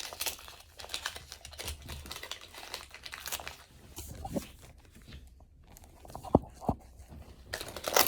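Gift wrapping paper being torn and crinkled by hand in a series of irregular rustles and crackles, with two sharp snaps a little over six seconds in.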